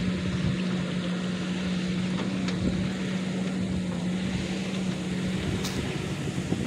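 Kobelco SK200 excavator's diesel engine running steadily, a low even hum that drops away about five seconds in.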